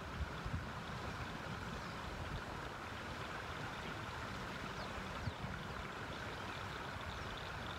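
Steady rush of river water flowing over a riffle, with a light low rumble of wind on the microphone.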